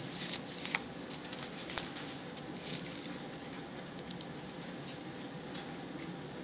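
Soft rustling with scattered light ticks and flicks, like thin Bible pages being leafed through to find a passage.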